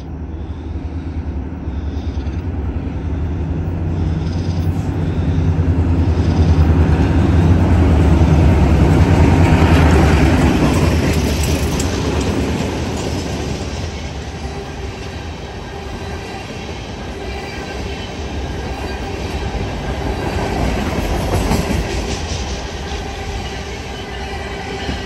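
Diesel freight locomotive approaching and passing close by, its engine loudest about eight to ten seconds in, followed by a long string of freight cars rolling past with wheels clicking over the rail joints.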